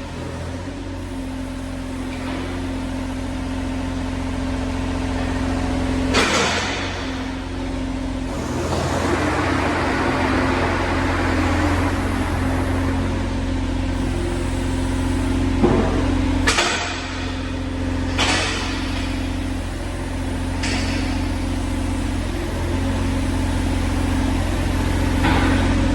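John Deere 35G mini excavator's diesel engine running steadily, with a handful of sharp knocks and clunks and a rushing hiss that swells for a few seconds near the middle.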